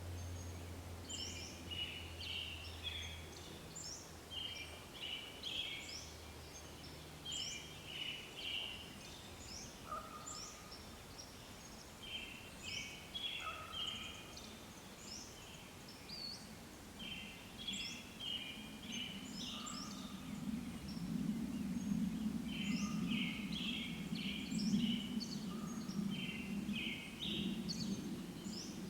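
Small birds calling in short, high, chirping phrases that repeat every couple of seconds, with a few lower single notes. A low rumbling noise comes up about two-thirds of the way through and is the loudest sound near the end.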